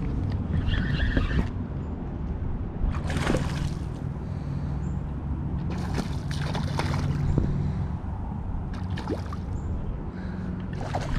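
A small hooked snook splashing at the surface several times as it is fought on a spinning rod, with water sloshing over a steady low rumble of wind on the microphone.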